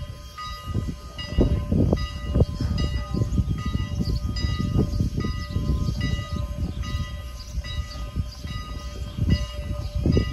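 Steam-hauled excursion train running on the track: a steady rumble with irregular knocks and clanks, and a ringing tone that comes and goes over it.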